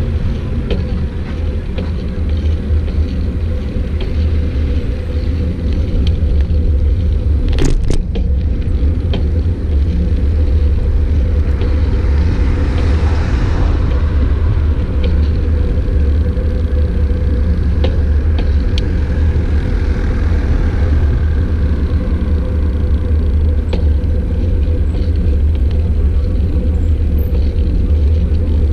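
Steady low rumble of wind buffeting the microphone while riding a bicycle, mixed with road noise. A sharp click comes about eight seconds in, and a hiss swells and fades a few seconds later.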